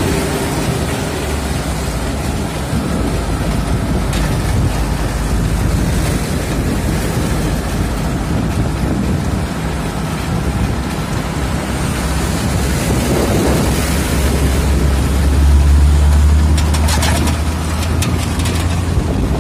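Riding noise from a motor scooter on the road: wind buffeting the microphone over a steady engine and tyre rumble. A low engine drone swells about fifteen seconds in, with a few sharp clicks near the end.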